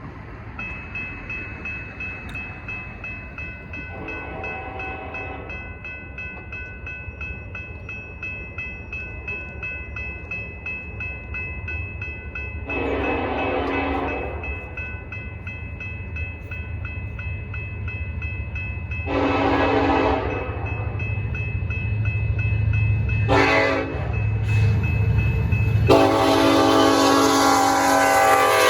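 Union Pacific freight locomotive horn sounding the grade-crossing signal: two long blasts, a short one, then a long one held to the end, while the train's low rumble grows louder as it approaches. Grade-crossing bells ring steadily underneath.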